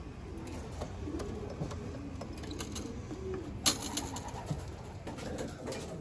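Racing pigeons cooing softly with low, wavering coos, and a single sharp knock about three and a half seconds in.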